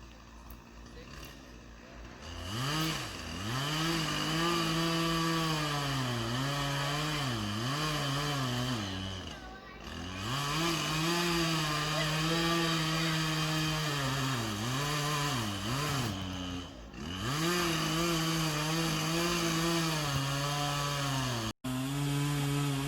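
Chainsaw cutting into a cottonwood tree being felled, its engine revving up and bogging down over and over as it bites into the wood. It starts after a couple of seconds, eases off twice briefly, and cuts out for an instant near the end.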